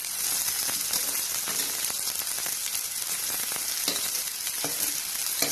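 Pieces of boiled bitter gourd sizzling steadily in hot oil in a frying pan, with a few short knocks of a spoon against the pan as it is stirred.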